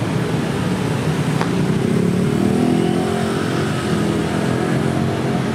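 Street traffic: a motor vehicle's engine passes close by, loudest about two to three seconds in.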